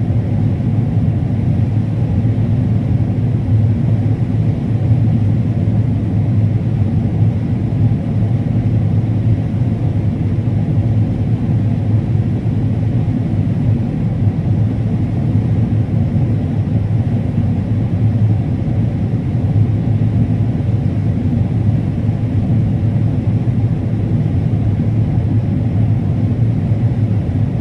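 Combine harvester running steadily while harvesting corn: a constant low drone of engine and threshing machinery.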